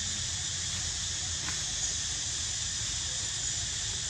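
A steady, high insect chorus in the trees, with a low rumble underneath.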